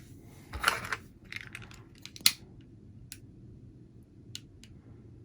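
Scissors cutting heat-shrink tubing to length: a short rasping cut, then a sharp snip, followed by a few light clicks.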